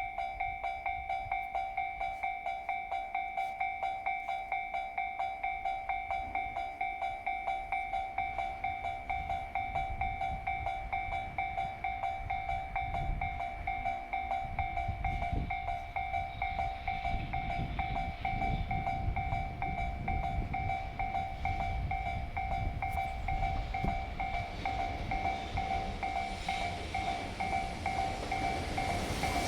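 Japanese railway level-crossing warning bell ringing in a fast, even beat, with the low rumble of an approaching freight train building from about halfway through.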